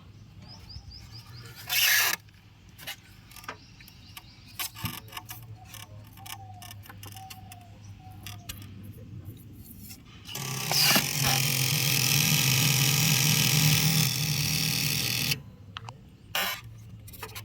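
A loud, steady mechanical noise from a 125 kVA generator set starts about ten seconds in and cuts off suddenly about five seconds later. Under it runs a steady low hum, with scattered clicks and a short loud burst about two seconds in.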